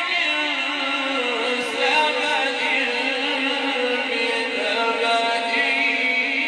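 A male Quran reciter's voice holding one long melodic line in the ornamented mujawwad style, the pitch wavering and turning through the melisma without a break.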